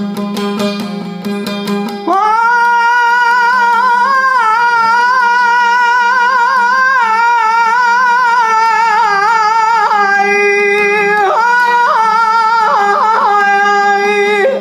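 Turkish uzun hava: a solo voice enters about two seconds in and holds long, free-rhythm notes with wavering melismatic ornaments, over a plucked string instrument and a steady low drone. The voice breaks off abruptly near the end, leaving the strings.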